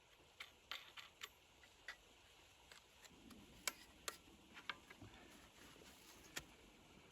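Near silence broken by about a dozen faint, sharp clicks and ticks at irregular intervals.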